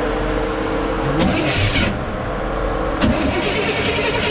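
1956 Chevy truck engine being cranked over by its starter without catching, with a couple of short sharp noises along the way. It is not starting because it is out of gas: the freshly reinstalled carburetor's bowl has not yet filled with fuel.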